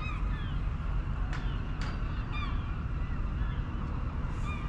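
Gulls calling: a scattered series of short cries, each sliding downward in pitch, over a steady low background rumble.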